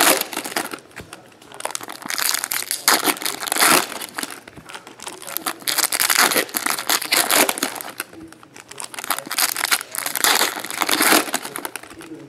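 Foil trading-card pack wrappers crinkling in the hands as packs are torn open, in several bursts with short pauses between.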